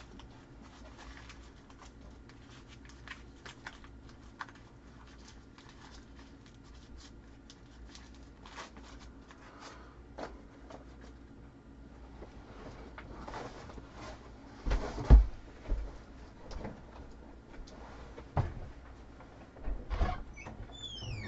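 Room tone with a low steady hum and scattered faint clicks and rustles, then several louder knocks and thumps in the second half, like boxes or cupboards being handled while someone rummages through stored items. A short high squeak comes near the end.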